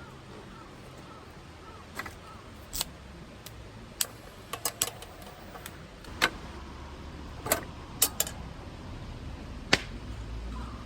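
A run of short, sharp clicks and knocks at irregular intervals, about a dozen in all, with a cluster in the middle and a few louder ones near the end, over a low steady background.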